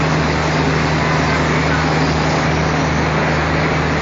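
LGB G-scale model diesel locomotive running, its onboard sound system playing a steady diesel engine drone with a constant low hum and no changes.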